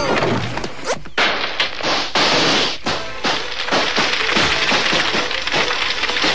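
Cartoon sound effects under music: a falling whistle-like glide at the start, then from about a second in a dense rush of fire flaring up, with many small knocks through it.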